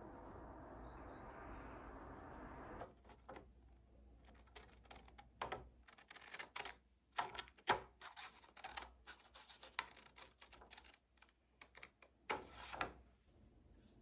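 Scissors snipping paper as a poster print is cut out: a run of short, sharp, irregular snips and paper rustles. Before that, a steady hiss runs for the first three seconds.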